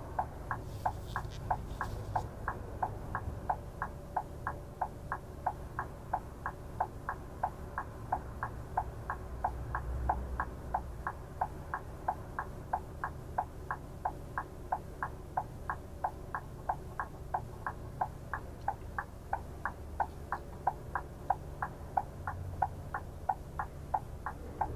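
Bus turn-signal indicator ticking steadily, about three ticks a second, over the low rumble of the idling engine while the bus stands at a red light.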